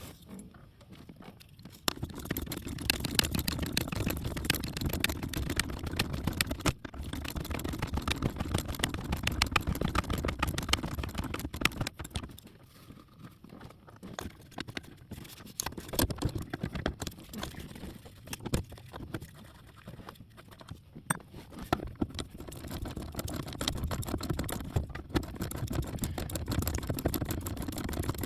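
Hand tools working on the nuts that hold a brake master cylinder to the brake booster: scattered metal clicks and clatter. Under them runs a steady low hum that drops out for a few seconds about halfway through, then returns.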